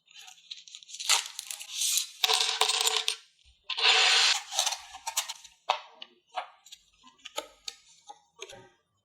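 Unboxing handling sounds: two longer stretches of sliding and scraping of packaging or parts, then a run of light, irregular clicks and knocks from small hard objects.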